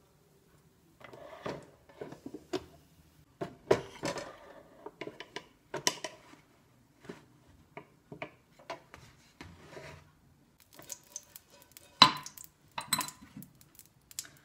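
Kitchen utensils clattering on an electric contact grill: irregular knocks and scrapes of a wooden spatula and a batter bowl against the grill plates. The loudest is a sharp knock near the end.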